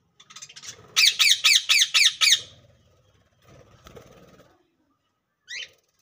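Budgerigar squawking: a fast run of about seven loud harsh calls, each falling in pitch, then one short call near the end.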